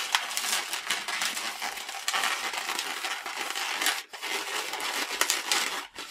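Inflated latex modelling balloons (an orange 260) squeezed and twisted by hand, the bubbles rubbing against each other in a continuous crinkly rub, with a brief break about four seconds in.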